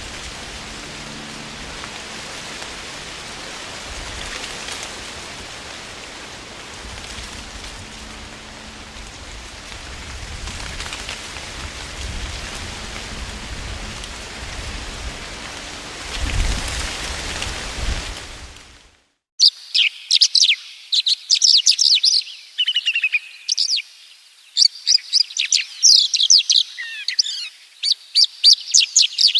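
A steady rushing noise of wind through leaves, swelling slightly now and then, cuts off abruptly about 19 seconds in. After a brief silence, small birds chirp in quick, high-pitched runs of notes.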